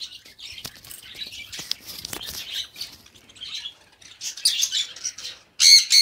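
A mixed aviary of small pet parrots, budgerigars among them, chirping and chattering throughout, with a loud burst of harsh squawks near the end.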